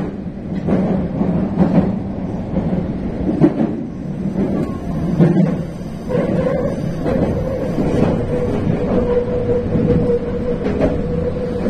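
Meitetsu electric train running, heard from inside the front of the car: a steady rumble with irregular clunks from the wheels over the track. About six seconds in, a steady whining tone sets in and holds as the train rounds a curve.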